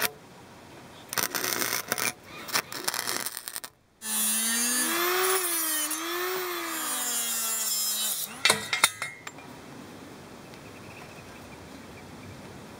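Harbor Freight 90-amp flux-core welder arc crackling in short bursts as it tack-welds a steel end cap onto square tubing. About four seconds in, an angle grinder with a cutoff wheel takes over, its whine rising and falling in pitch as it cuts the steel tube end, and stops about eight seconds in.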